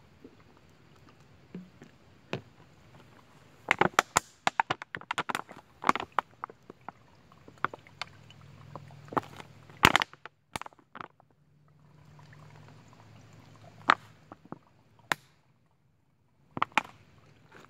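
Thin plastic water bottle crinkling and crackling as it is squeezed by hand to force spring water through an inline squeeze water filter into a bottle below. The crackles come in irregular clusters, a dense run about four seconds in and single sharp cracks later.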